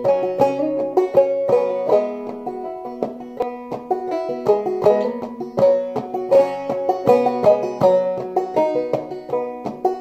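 Five-string banjo played clawhammer style in sawmill tuning, pitched lower than standard, a quick even run of plucked notes with melody and drone strings ringing together.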